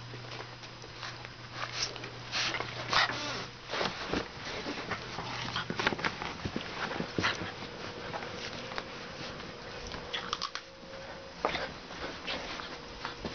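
Pit bull and shar pei puppies play-fighting: a run of short, sharp yips and scuffling noises coming irregularly, several a second at the busiest.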